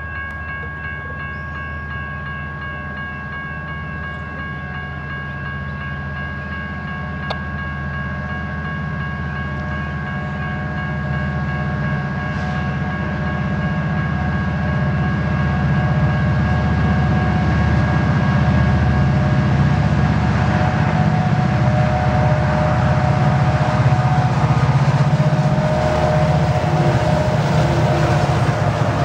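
Two EMD SD70MAC diesel-electric locomotives with two-stroke V16 engines approaching at the head of a coal train, their deep engine rumble growing steadily louder as they near. Steady high-pitched tones sound over it and fade in the second half.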